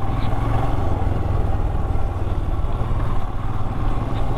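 Motorcycle engine running steadily at low revs while the bike is ridden.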